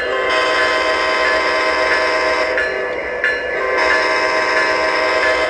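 Sound-equipped Atlas O-scale Amtrak P42 Genesis model locomotive sounding its diesel horn through its onboard speaker: a steady several-note chord held in two long blasts with a short break between them.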